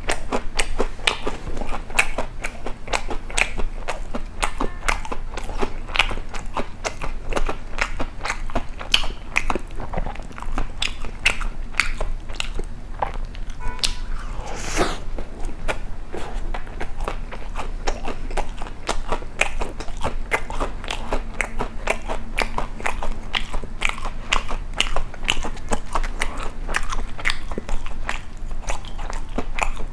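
Close-miked chewing of crisp toast: a rapid, irregular run of crunches throughout. There is one brief, louder smeared noise about halfway through.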